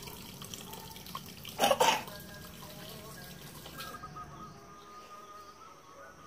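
Water running and splashing from a tap as a container is filled for watering plants, with one brief loud burst about two seconds in.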